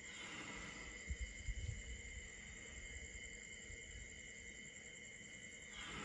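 Crickets trilling steadily at night, with a few short low thumps about a second in.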